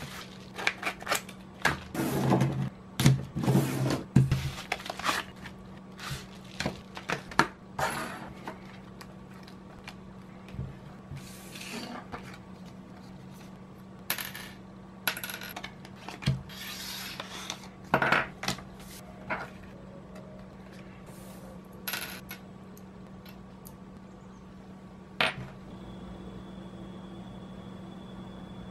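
Handling of a padded paper mailer and a metal lapel pin on a wooden desk: paper crinkling and rustling in the first few seconds, then scattered small metallic clicks and taps as the pin and its clutch back are handled. A single sharper click comes near the end, followed by a faint steady high whine.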